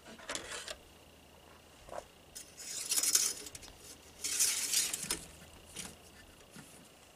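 Light scraping and clinking of a metal dipstick and a plastic funnel being handled at the transmission dipstick tube, with two longer scrapes of about a second each in the middle.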